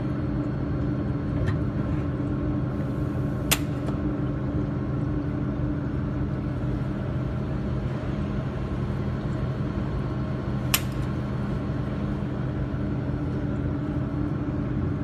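Jewelry laser welding machine running with a steady electrical hum, broken twice by a short sharp click.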